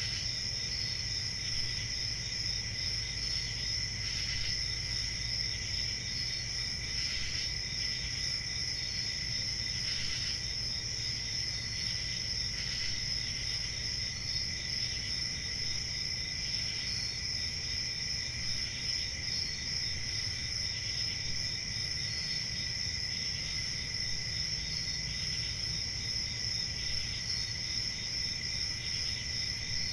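A chorus of crickets trilling steadily, several pitches held at once, with a short chirp repeating about every two and a half seconds over a faint low rumble.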